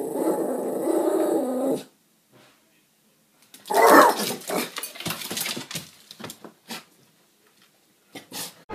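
A dog growling, followed by a pause, then a short loud sound and scattered knocks.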